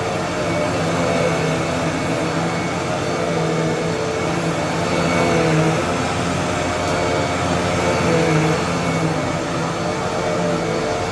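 Vacuum cleaner running steadily, its motor drone wavering slightly in pitch.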